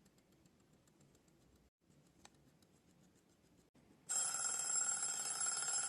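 Stainless steel mechanical kitchen timer ticking faintly, then about four seconds in its alarm bell rings loudly and steadily, signalling that the countdown has run out.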